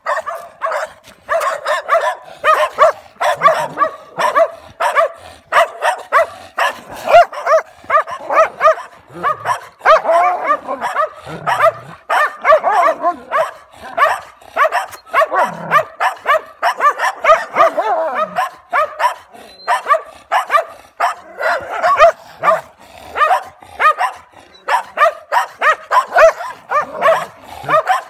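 Dogs barking rapidly without a pause, several short barks a second: a German Shepherd and a mixed-breed dog facing off across a wire fence.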